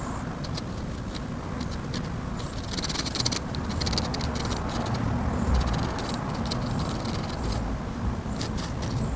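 Pen nib scratching across paper in short inking strokes, with a quick dense run of strokes about three seconds in, over a steady low rumble.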